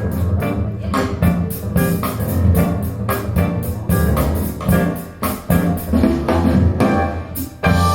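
Instrumental music with guitar, bass and drums played back through a pair of Wharfedale Linton Heritage loudspeakers, with a steady beat of drum hits.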